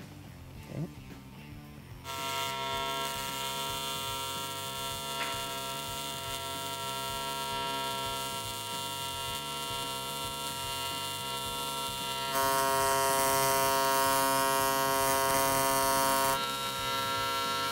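AC TIG welding arc on aluminum from a Miller Dynasty 350, set to a 135 Hz AC frequency at around 300 amps for a root pass. It is a steady buzz that strikes up about two seconds in and gets louder for about four seconds later on.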